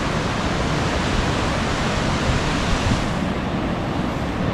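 Ocean surf breaking and washing in, a steady rushing hiss, with wind rumbling on the microphone.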